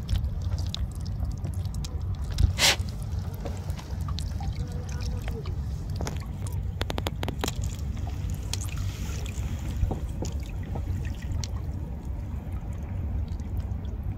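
Nylon gill net rustling and clicking as fish are picked out of it by hand in a wooden boat, over a steady low rumble. A sharp knock stands out about two and a half seconds in, and a quick run of clicks comes about halfway through.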